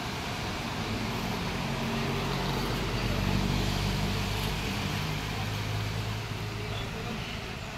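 A motor vehicle's engine passing close by: it grows louder over the first few seconds, then fades away.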